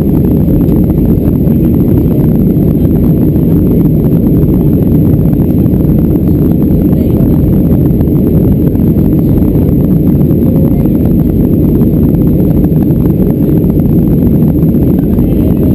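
Boeing 737-400's CFM56-3 jet engines and the airflow over the fuselage during climb, heard from inside the passenger cabin as a loud, steady, deep rumble.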